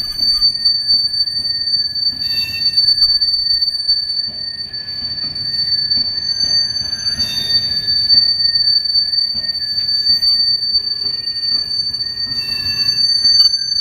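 Covered steel-coil freight wagons rolling slowly past, their wheels giving a steady high-pitched squeal over a low rumble, with a few brief scraping flare-ups.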